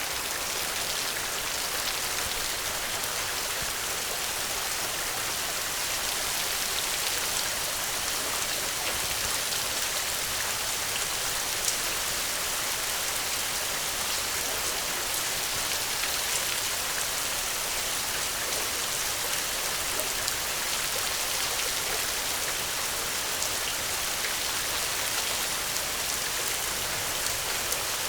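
Steady rainfall, a dense even hiss with individual drops ticking on a surface here and there.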